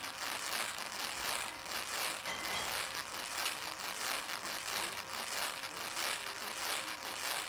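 Hissing crackle of corona discharge from the tips of an electric whirligig spinning on a Tesla coil, a steady high hiss with a regular pulsing.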